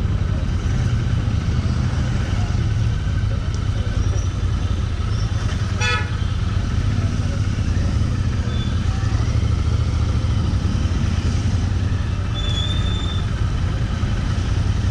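Steady low rumble of wind and a motorcycle engine on the move, a Royal Enfield Interceptor 650 parallel twin. A short horn toot about six seconds in.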